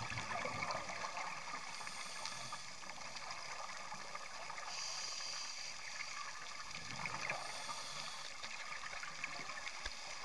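Underwater ambience recorded on a dive camera: a steady fine crackle, typical of snapping shrimp on a reef, with two gurgling swells of a diver's exhaled bubbles, one at the start and one about seven seconds in.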